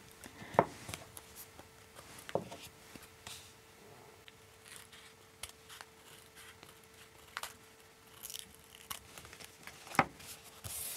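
Scissors snipping through folded origami paper, trimming a rounded edge along a marked line: separate sharp snips a second or two apart, with light paper handling between them.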